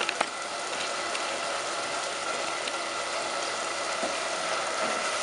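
Two light knocks right at the start, a wooden spoon against a cooking pot as sadza is scooped out, over a steady hiss with a faint hum.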